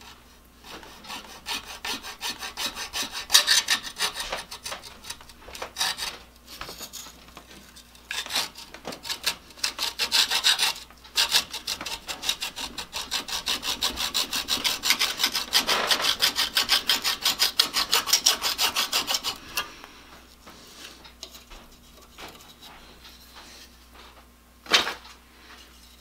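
Hacksaw cutting through the moulded iron-core choke on a power cord, which is clamped in a vise: quick rasping back-and-forth strokes with a few short pauses, stopping about three-quarters of the way through. One sharp tap near the end.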